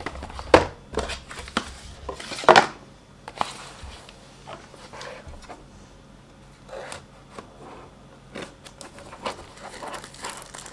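Small cardboard product boxes being handled and opened on a desk mat: lids sliding and scraping, boxes set down with light knocks. The loudest knocks come about half a second and two and a half seconds in.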